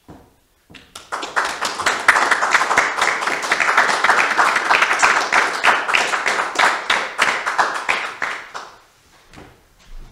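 A small group of people applauding: a dense patter of hand claps that starts about a second in and dies away near the end.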